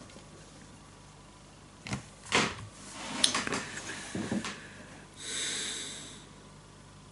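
Handling noise from a book or papers: several soft knocks and rustles, then a hiss about a second long.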